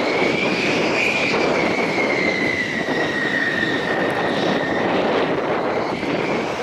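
Two-seat F-16 fighter's single jet engine while taxiing: a steady roar with a high whine that rises slightly about a second in, then eases back down.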